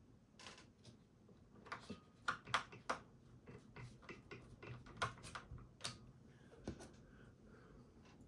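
Irregular sharp clicks and taps of screws and a screwdriver against the plastic chassis of an all-in-one PC as its four back screws are put back in, with a dozen or so louder clicks through the middle.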